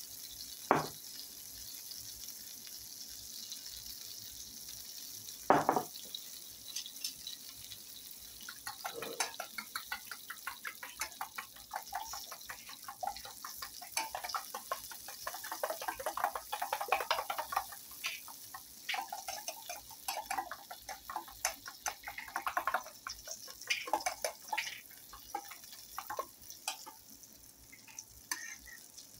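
Butter sizzling faintly in a non-stick skillet, with two sharp knocks early on. From about nine seconds in, eggs are beaten in a stainless steel mixing bowl: a fast, rhythmic run of clicks with short pauses that goes on nearly to the end.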